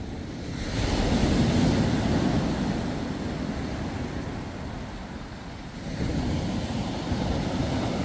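Sea surf breaking and washing up a sand-and-pebble beach, swelling about a second in and again about six seconds in.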